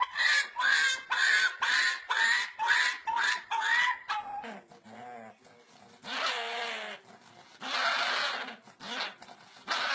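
A dog making pig-like noises: a quick run of about eight short, high calls in the first four seconds, then a few longer, breathy calls.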